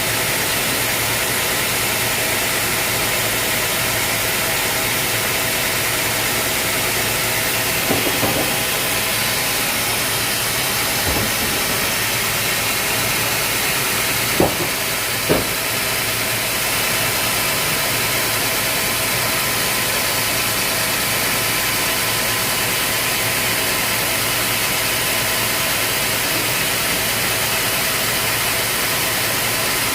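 Sawmill machinery running steadily, a constant mechanical drone and hiss, with a few short knocks partway through.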